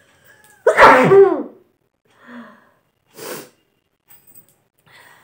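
A woman sneezes once loudly, a voiced sneeze that falls in pitch, about a second in; the sneeze is set off by tickling her nose with a long stalk of grass. Two short, much quieter breathy sounds follow.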